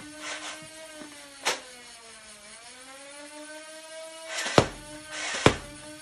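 Nerf Ultra Select blaster's flywheel motors whirring with a steady whine that dips in pitch around the middle and climbs back. Sharp snaps of darts come once about a second and a half in and twice near the end.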